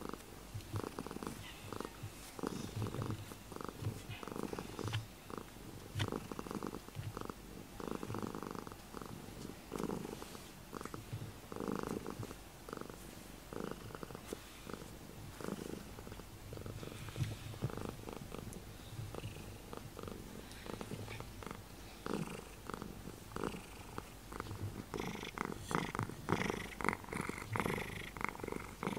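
A black cat purring steadily, the purr pulsing in a regular rhythm with its breaths; contented, happy purring.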